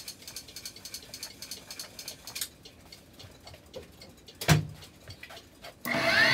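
Light clicks and ticks and a single knock, then the Unimat mini lathe's motor switches on near the end, the spindle spinning up with a rising whine.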